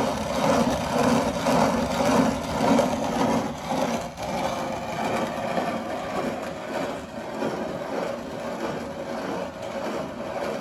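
Hand-cranked wooden grain mill grinding grain into flour: a continuous gritty grinding that swells about once a second for the first few seconds, then runs steadier and a little quieter.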